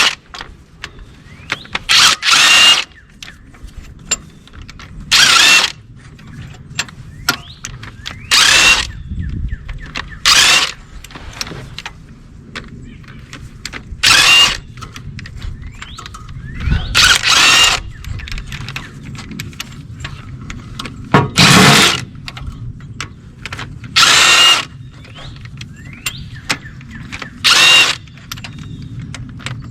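Power drill-driver run in about nine short bursts, roughly every three seconds, each a brief whine, spinning out loosened cylinder head bolts; faint clicks between the bursts.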